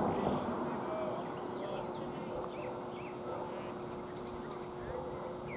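Outdoor ballpark ambience: an indistinct crowd murmur with a steady low hum, and small birds chirping repeatedly over it in short, quick calls.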